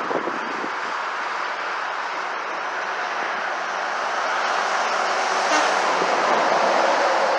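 Road traffic passing close by: a steady rush of tyre and engine noise that grows louder about four seconds in as a vehicle approaches.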